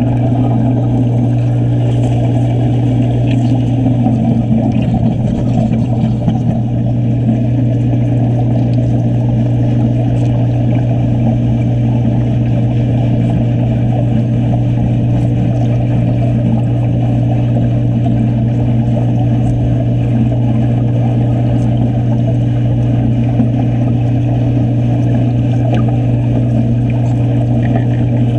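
Underwater wet stick-welding arc: a steady crackling, bubbling rush heard through the water, over a constant low hum.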